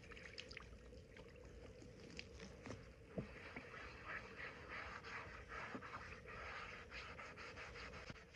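Faint hand scrubbing inside a wet cast iron skillet with a scouring pad and baking soda, working off rust. Scattered small clicks come first, then a steady rough rubbing from a few seconds in.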